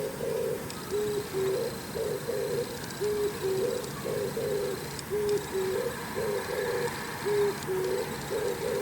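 Oriental turtle dove singing its low cooing song: a four-note phrase, a flat note, a short rising note and two rougher notes, repeated evenly about every second and a half, five times.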